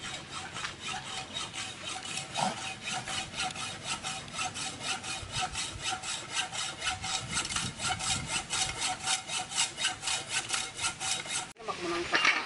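Hand sawing through a pipe clamped in a pipe vise: an even back-and-forth of about four strokes a second that cuts off suddenly near the end.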